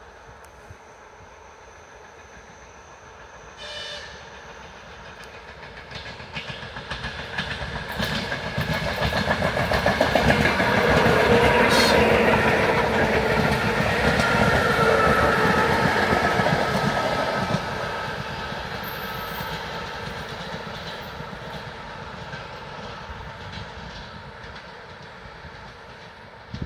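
ER9M electric multiple-unit train passing: its rumble and wheel clatter over the rail joints build up, are loudest for several seconds about ten seconds in, then fade away as it recedes.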